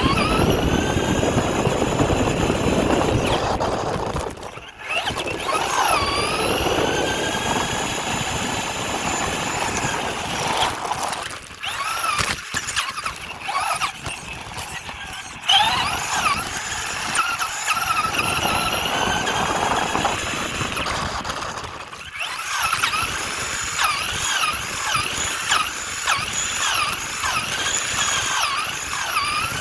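RC car's motor whining as it is driven, the pitch rising and falling with the throttle over rough tyre and ground noise, picked up close by a phone riding on the car. The whine drops away briefly several times when the throttle is let off.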